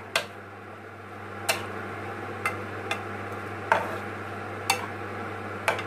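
A spatula knocking and scraping against a non-stick frying pan as stir-fried cabbage and vegetables are turned: about seven sharp knocks, irregularly spaced, roughly one a second.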